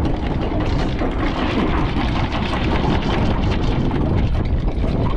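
Strong wind buffeting the microphone: a loud, continuous rumble with rapid crackling gusts.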